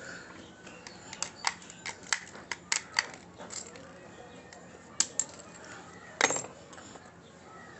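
A small metal padlock being picked up and handled. It gives a quick run of about ten sharp metallic clicks and taps starting about a second in, then two more clicks, and a longer clack shortly before the end.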